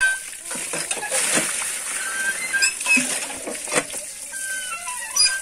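Water pouring from a tap into a plastic crate of live catfish, splashing and pattering over the fish, with irregular clicks and a few short high chirps.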